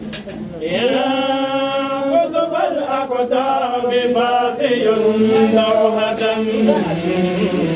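A voice chanting an Arabic Sufi praise poem to Sheikh Ahmad al-Tijani, drawing out each syllable in long held notes that glide between pitches.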